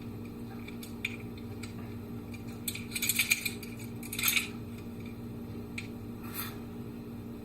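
Light metal clicks and scrapes of a Ruger SR1911 Commander pistol's steel slide and barrel being shifted on the frame to line up the slide stop pin hole with the barrel link, a few single ticks and two short clusters of clinking about three and four seconds in. A steady low hum runs underneath.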